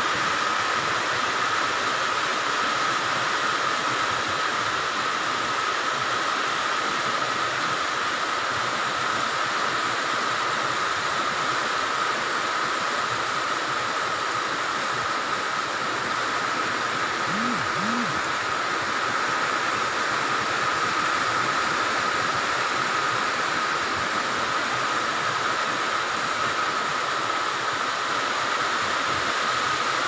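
Steady, even rushing of a flooded river torrent of muddy brown water running through vegetation, unchanging throughout.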